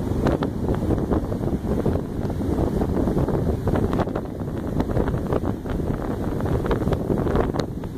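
Strong wind buffeting the microphone, with occasional crackles, over heavy storm surf from an approaching hurricane breaking on the beach.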